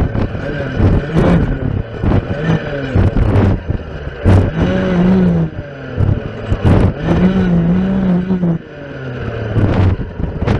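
Stihl FS 460 clearing saw's two-stroke engine revving up and dropping back over and over as its circular blade cuts through spruce saplings, held at high, steady revs twice in the middle. Sharp knocks of the blade striking stems come throughout.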